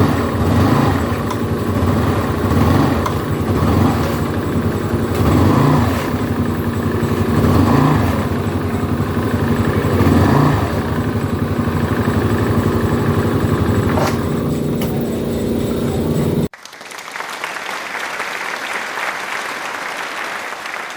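Yamaha Mio MXi 125 scooter's single-cylinder engine running, revved up and eased off about five times. About three-quarters of the way through, the sound cuts off abruptly to a quieter, even hiss.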